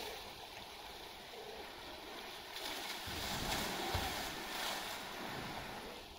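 Water sloshing and splashing in a polar bear's pool, swelling in the middle, with a soft knock about four seconds in.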